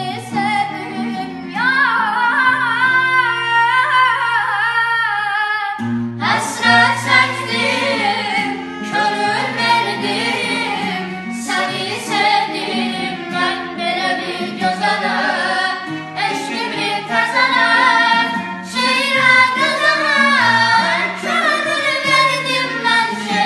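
Children singing a slow Azerbaijani-style folk love song with wavering, ornamented melody lines over held low accompaniment notes. About six seconds in, the sound cuts to a new passage, which a girl's voice carries.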